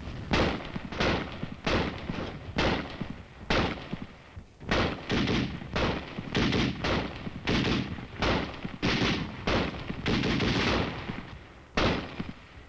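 Small-arms gunfire from infantry weapons on a hill line: a long run of sharp shots, roughly two a second and unevenly spaced, with a denser, longer stretch of fire near the end.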